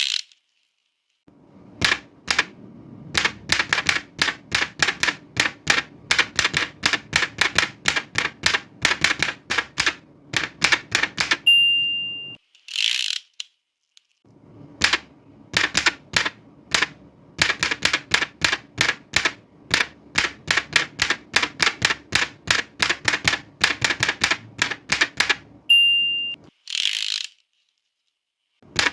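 Old manual typewriter being typed on in two fast runs of keystrokes. Each run ends with the margin bell's single ding and the carriage being swept back for a new line, followed by a short pause.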